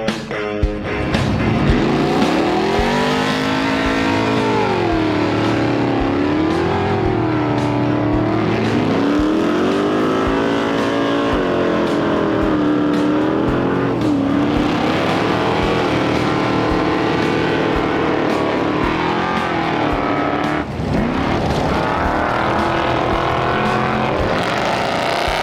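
Off-road race vehicle's engine revving hard, its pitch climbing and falling every few seconds. It drops sharply once about twenty seconds in, then climbs again.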